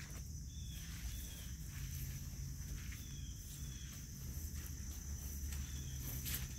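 Crickets trilling steadily, with short high chirps repeating about once a second and a low rumble underneath.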